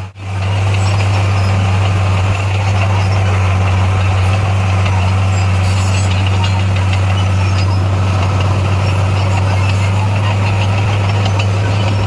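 Bulldozer's diesel engine running steadily with a deep, even hum, briefly cutting out for an instant right at the start.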